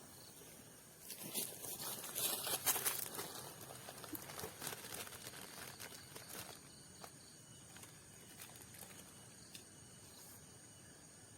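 Dry rustling and crackling for several seconds, starting about a second in and thinning out to scattered clicks, over a steady high-pitched drone of night insects.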